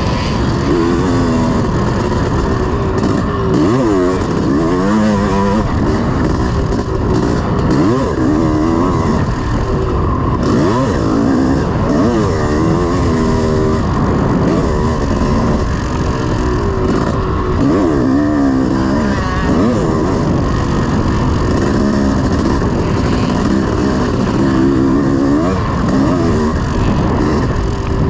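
1986 Honda CR500's single-cylinder two-stroke engine being ridden hard, revving up and down over and over, its pitch rising and falling every second or two.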